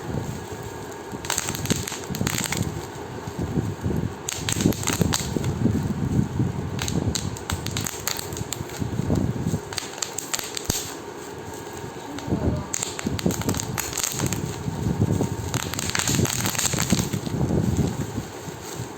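Plastic bubble wrap being squeezed and popped: irregular clusters of sharp pops mixed with the crinkling and rustling of the plastic sheet.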